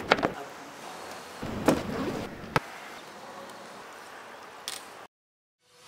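Equipment being handled and set down: a few sharp knocks and clatters, the loudest about two seconds in, over a steady background hiss. The sound cuts off abruptly near the end.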